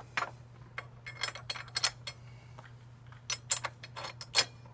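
Irregular light metallic clinks and taps from a steel Givi crash bar and its mounting hardware knocking against the motorcycle's frame as the bar is lined up and a bolt is started by hand.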